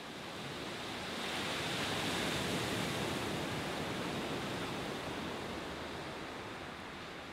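Sea surf washing on a shore: a steady rush of breaking water that swells over the first two seconds and then slowly eases off.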